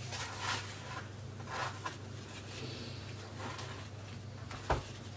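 Faint rustles and soft squishes of disposable plastic gloves breaking butter and pressing it onto bread dough, a few short ones spaced out, with a sharp click near the end. A steady low hum runs underneath.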